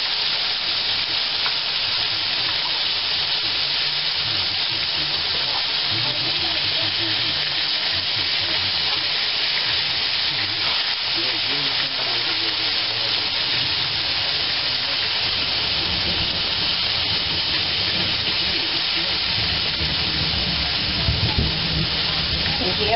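Tulingan (tuna) pieces frying in a pan of hot oil with a steady sizzle, turned now and then with metal tongs. A low rumble of thunder builds in the last few seconds.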